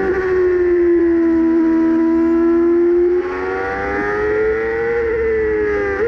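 Formula 1 car engine heard from on board, running at moderate, fairly steady revs. The driver eases off about three seconds in, then the revs climb again, with a short dip and pick-up near the end.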